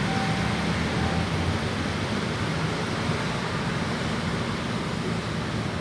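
Diesel locomotive of a stone-hauling freight train running with a steady low rumble and a broad hiss. A faint high beeping tone sounds twice in the first second or so.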